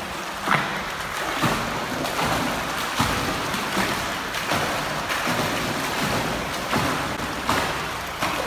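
Water splashing from a swimmer's dolphin (butterfly) kick as he kicks along on a kickboard: a steady rush of churned water with a splash from each kick, roughly one every three-quarters of a second.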